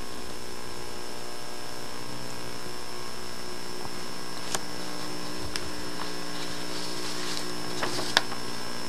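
Steady electrical hum with a thin high whine, the background noise of an old VHS recording, broken by a few sharp clicks in the second half, the loudest near the end.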